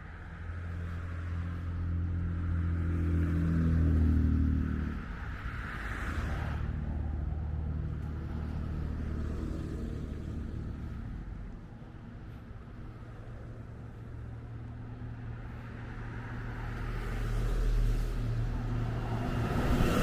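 City street traffic: motor vehicles driving past, with one engine's hum building to its loudest about four seconds in, and another vehicle approaching near the end.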